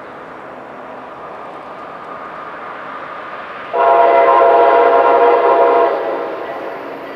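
Approaching electric train sounding one long horn blast of about two seconds, starting about four seconds in, over the steadily growing rumble of the train drawing nearer.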